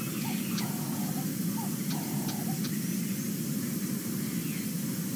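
Outdoor bush ambience: a steady low rushing noise, with faint short bird calls in the first three seconds or so.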